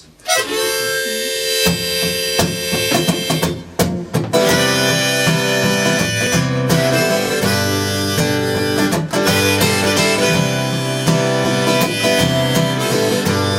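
Instrumental intro of a solo acoustic folk song: a harmonica plays held chords and melody over a strummed acoustic guitar, the guitar coming in a little under two seconds in.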